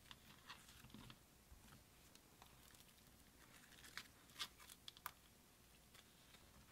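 Faint sticky clicks and small pops of clear-base glitter slime being stretched and pressed by hand, with a few sharper pops about four to five seconds in.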